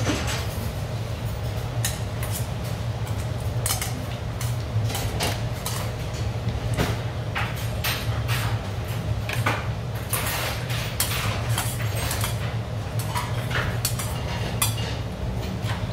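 Close-up eating sounds: broth slurped from a stainless steel bowl, with chopsticks and a spoon clicking against the bowl, over a steady low hum.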